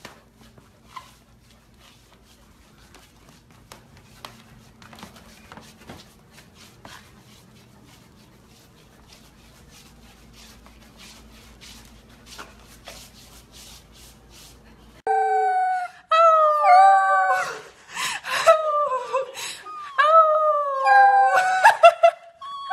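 Corgi puppy howling: a string of high, wavering howls that rise and fall in pitch, starting about two-thirds of the way through. Before that there are only faint clicks and light rubbing.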